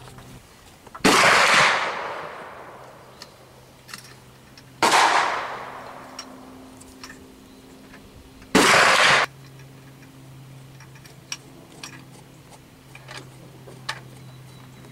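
Three loud gunshots about four seconds apart. The first two ring out with a long echoing tail, and the third cuts off abruptly. A few faint clicks fall between them.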